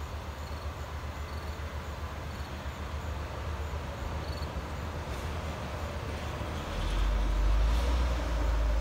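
Delivery box truck's engine running with a low rumble, growing louder about seven seconds in as the truck pulls forward.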